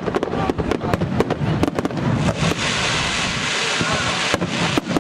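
Fireworks display: many rapid sharp cracks and pops from exploding shells, merging about two seconds in into a dense, continuous crackle, with a few more sharp reports near the end.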